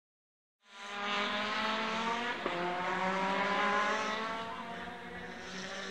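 Rally car engine at high revs, its note climbing steadily as it accelerates along the stage, with a short sharp crack about two and a half seconds in.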